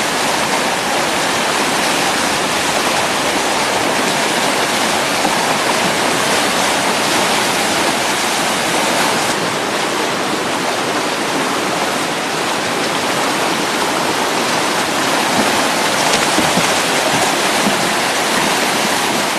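River rapids rushing: a steady, unbroken wash of churning whitewater.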